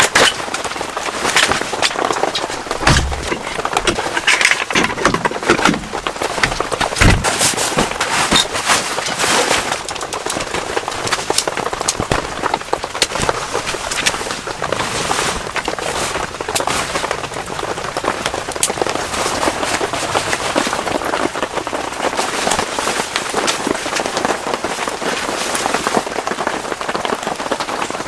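Heavy rain pattering on tent fabric, a dense crackle of drops, with a few dull thumps in the first several seconds.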